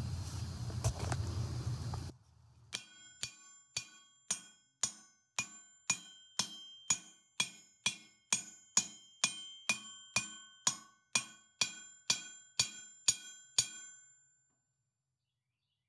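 Hammer striking the face of a 66 lb VEVOR cast steel anvil, about twenty even taps at about two a second. Each tap leaves a clear ringing tone that fades before the next. Before the taps there are about two seconds of low rumbling noise.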